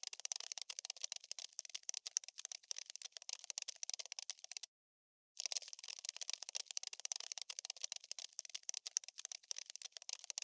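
Looped insect-scuttling sound effect: a dense, rapid scratchy crackle of tiny clicks, high and thin with no low end. It breaks off for about half a second just under five seconds in, then starts again.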